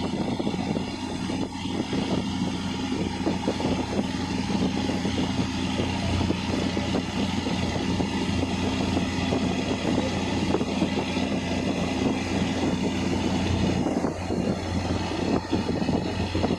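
Boat engine running steadily with a low, even hum, under a continuous rushing noise.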